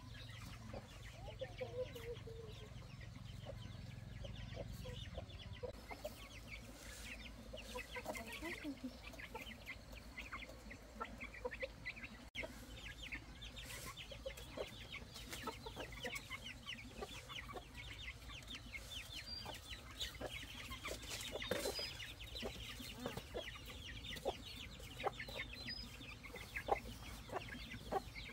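Chickens clucking, with many short clicks and ticks throughout.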